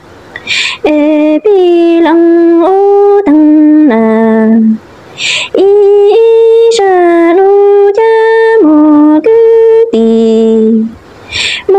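A woman singing a Hmong orphan's lament (lug txaj ntsuag) solo and unaccompanied. Each phrase is a long held note that steps between a few pitches, with a quick breath taken between phrases.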